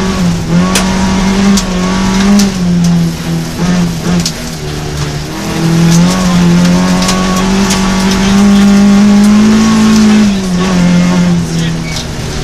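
Rally car engine heard from inside the cockpit, revving hard and changing gear, its pitch climbing and dropping in steps, with a long held pull near the end before it drops. Gravel and stones tick sharply against the underside of the car on the loose road surface.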